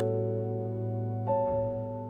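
Soft background piano music: sustained chords ringing and fading, with a new chord struck about a second and a quarter in.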